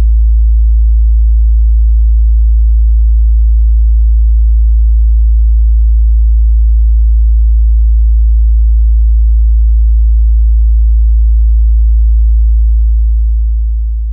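Steady 55 Hz sine-wave test tone, a single very low pure tone used to test a subwoofer's or car audio system's bass response. It starts to fade out near the end.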